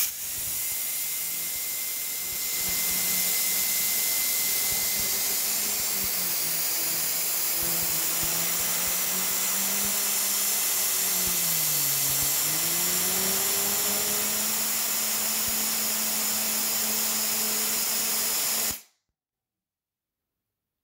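Wolfbox MF100 electric air duster blowing at full power into a computer case fan: a loud, steady rush of air over a motor hum. It steps up in level about two and a half seconds in, the hum dips briefly in pitch around the middle, and it cuts off suddenly near the end.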